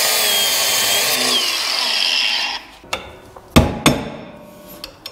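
Angle grinder with a cutoff wheel cutting into steel at a wheel stud for about two and a half seconds, its high whine sagging as the wheel bites, then shutting off. Two sharp knocks follow about a second later.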